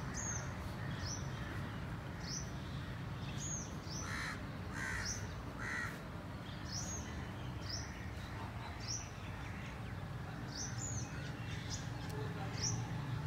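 Birds calling in the open air: a small bird repeats a short high chirp about once a second throughout, and around the middle a lower call sounds three times, about a second apart. Steady low wind rumble on the microphone underneath.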